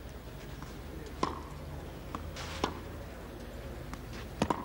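Tennis ball being hit back and forth in a baseline rally: sharp racket-on-ball knocks about a second apart, with a quick cluster of knocks near the end, over a low steady background.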